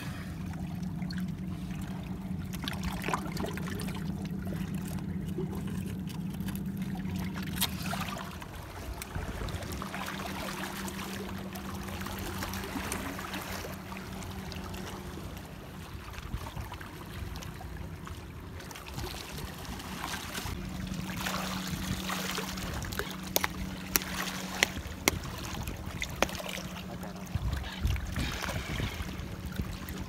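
Seawater washing and trickling among rocks in the shallows, under a low steady hum. Several sharp knocks come near the end.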